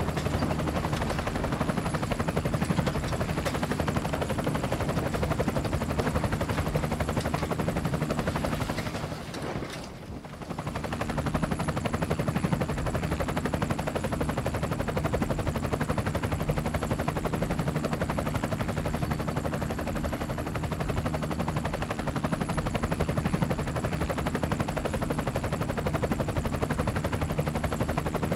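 Small quadcopter drone's propellers buzzing steadily in flight, with a brief dip in level about ten seconds in.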